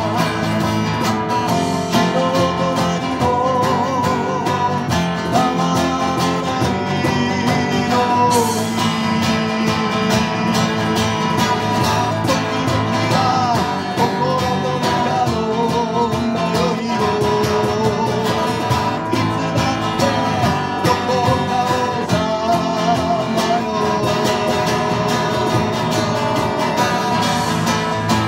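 Live acoustic-electric guitar strumming with electric bass, and a wavering lead melody line carried over them.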